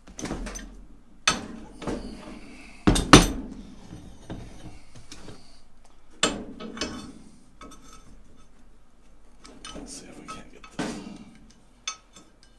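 Heavy steel C-clamps and steel backing pieces clanking and knocking as they are handled and set onto hardwood bead-forming blocks over the edge of an aluminium fuel tank. It comes as a string of separate knocks and clanks, the loudest pair about three seconds in.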